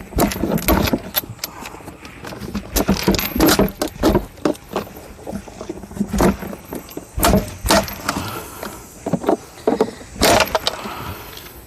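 Irregular clicks, knocks and rattles of hands and tools working on the plastic compartment of a portable refrigerator, scattered throughout with no steady rhythm.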